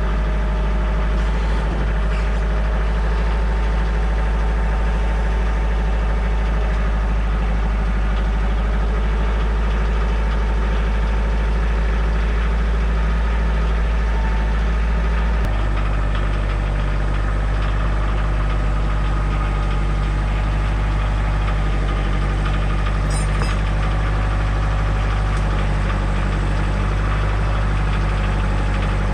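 Compact diesel tractor engine, a Kioti DK40se HST, running steadily with a low hum; its engine speed changes about halfway through.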